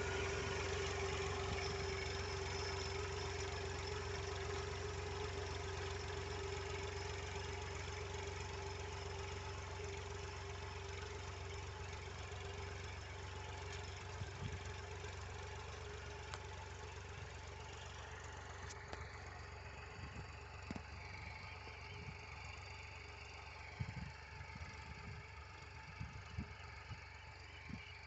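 A tractor engine runs steadily while pulling a seed drill through dry soil, slowly fading as the tractor moves away. A few faint knocks and clicks come in the last part.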